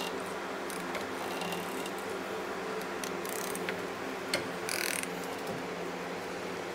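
Garage fan running steadily, with a few light clicks and a brief metallic rattle about five seconds in from tools being handled on the motorcycle.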